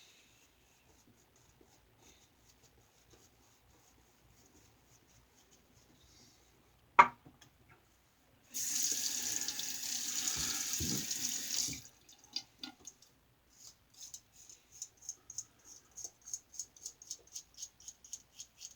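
A Star Super Six safety razor with a Gem single-edge blade scraping through lathered stubble in short strokes, with one sharp knock about seven seconds in. A tap then runs for about three seconds as the razor is rinsed, and the scraping strokes resume at about three a second.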